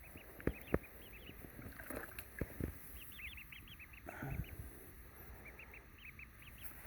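Ducklings peeping: runs of short, high, rapid peeps, with a few brief knocks in the first few seconds.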